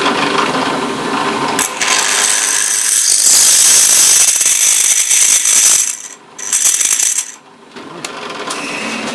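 Drill press re-drilling a hole in an aluminum part: a harsh, high-pitched cutting noise with two brief breaks a little past the middle, when the bit eases off the work.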